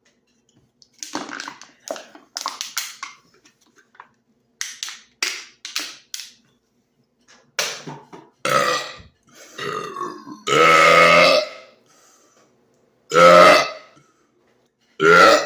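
A run of short clicky sounds, then a series of loud belches from a person who has just chugged a carbonated soda, the longest lasting about a second and a half around the middle, with two more shorter belches near the end.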